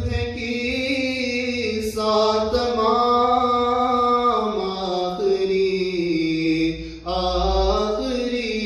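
A man singing an Urdu naat unaccompanied, in slow phrases of long held notes, with breaks about two seconds in and again around four and a half and seven seconds.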